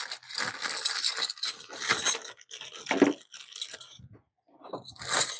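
Loose screws and small metal hardware clinking and rattling as someone rummages for a screw, with a short pause about four seconds in.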